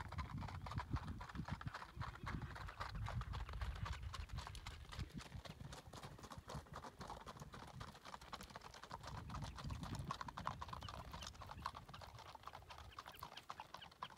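Hoofbeats of two Icelandic horses ridden along a gravel road: a quick, even patter of hooves, with a low rumble underneath.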